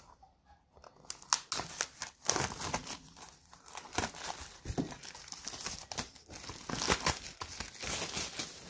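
Clear plastic wrap crinkling and crackling as it is handled and pulled off thin laser-cut plywood puzzle sheets, starting about a second in and going on as a dense run of sharp crackles.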